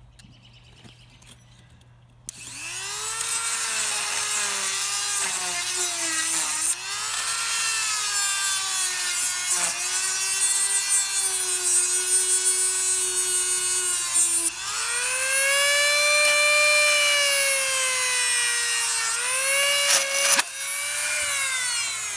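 Handheld Dremel rotary tool starting up about two seconds in and grinding with a high whine whose pitch dips and recovers as the bit bites and lets go. Near the end a few sharp clicks break into the whine: the bit snapping and its end piece flying off.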